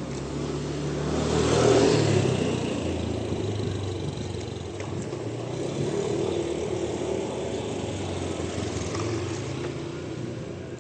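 Motor vehicle engine passing on a road, loudest about two seconds in, its engine note shifting in pitch, then running on more steadily and fading near the end.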